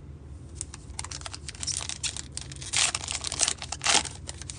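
The plastic wrapper of a 2023 Topps Heritage High Number baseball card pack crinkling and tearing as it is ripped open. A run of quick crackles, loudest in the last second and a half.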